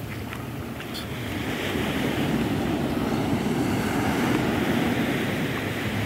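Ocean surf breaking and washing up a sandy beach, a steady rushing wash that swells about a second and a half in.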